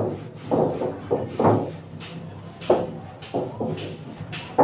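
A series of irregular knocks and thumps on galvanized sheet-metal air ducting as it is handled and fitted, several in quick succession about a second in and a few more spread through the rest.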